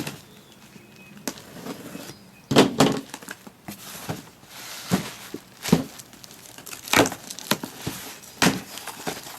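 Packaging being handled while items are unpacked from a cardboard box: irregular rustles, scrapes and light knocks, several sharper ones in the second half.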